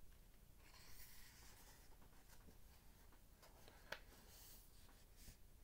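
Faint rustle of a book's paper pages being opened and turned by hand, with one small tick about four seconds in.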